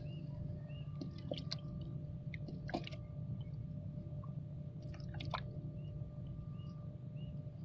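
A steady low motor hum runs under a faint high chirp that repeats about twice a second. About one, three and five seconds in come short clusters of sharp clicks and wet squelches.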